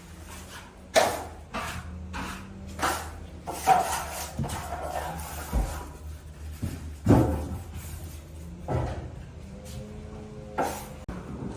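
Irregular knocks, clacks and short scrapes of hand tools being handled and set down during drywall joint-compound work, over a faint steady hum. The loudest knocks come about one second in and about seven seconds in.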